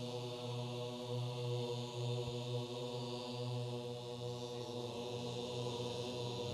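Low, steady vocal drone of voices holding one note, like a hummed chant, opening an unaccompanied Islamic nasheed.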